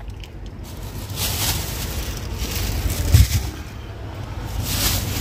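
Plastic grocery bags rustling as shopping is loaded into a car, in a few short bursts with a thump about three seconds in, over a steady low rumble.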